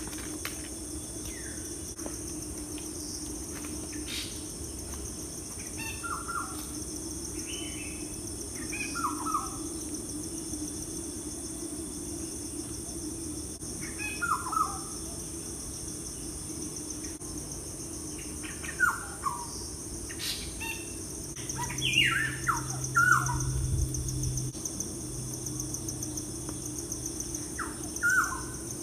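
Birds calling in short groups of quick falling notes every few seconds, over a steady high-pitched insect drone.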